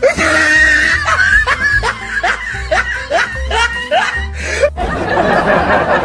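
A woman laughing in a string of short rising bursts, over background music with a steady bass beat; the laughter stops about five seconds in.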